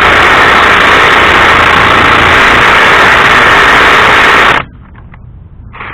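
Ryobi P235 brushed 18-volt impact driver hammering at full speed on a truck lug nut for about four and a half seconds, then stopping suddenly. The nut does not move; the owner later finds the driver was set to tighten rather than loosen.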